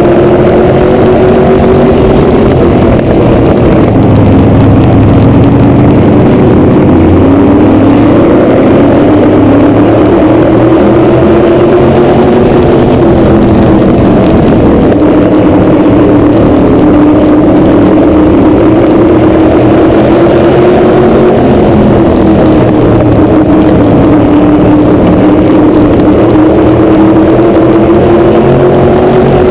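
Onboard sound of a PASS asphalt modified race car's V8 engine at racing speed, very loud, its revs rising and falling every several seconds as it laps.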